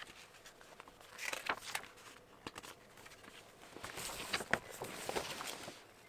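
Paper and packaging being handled: light rustling in two spells, with a few sharp clicks and taps.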